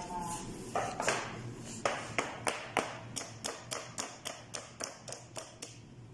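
Metal springform cake pan full of batter tapped repeatedly on a stainless steel counter to level the batter: a few louder knocks, then a run of about three taps a second that grow fainter.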